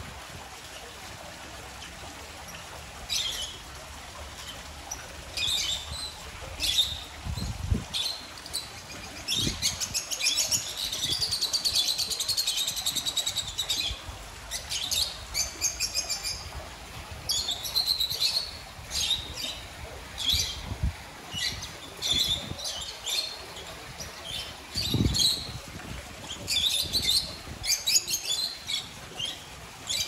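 A flock of lovebirds in an aviary chirping and chattering in short high-pitched calls. The calls start about three seconds in, come in scattered bursts and are densest from about ten seconds in. A couple of dull low thumps sound among them.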